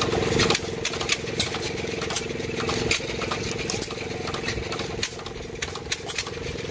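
1919 Hercules single-cylinder hit-and-miss gas engine running on display, with a rapid clatter of sharp clicks from its valve gear and ignitor. It is louder for about the first half second, then settles into steadier running.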